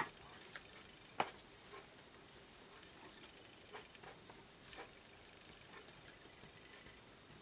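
Faint, scattered small taps and paper rustles from fingers handling a small cardstock circle and string and pressing them onto a paper card, with the sharpest tap about a second in.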